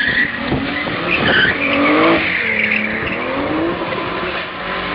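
A car engine revving hard while its tyres squeal on tarmac, the engine note rising about two seconds in.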